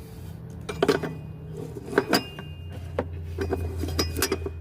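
Hand tools clinking against the metal EGR tube fitting and nearby engine parts: a string of irregular sharp clinks and taps, about a dozen, as a wrench is fitted and worked on the tube nut.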